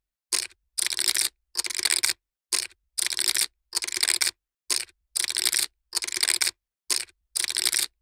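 Poker chips being shuffled by hand: dense bursts of clicking clatter. A short burst is followed by two longer ones, and the pattern repeats about every two seconds.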